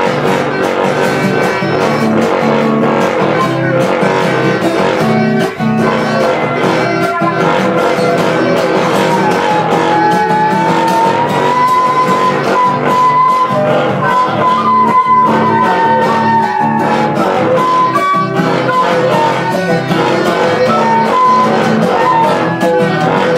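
Live folk ensemble music: an acoustic guitar strums a steady rhythm under wooden quena flutes and homemade plastic-pipe wind instruments, one of them a long pipe blown like a didgeridoo. In the middle, a flute holds and bends a long melody line.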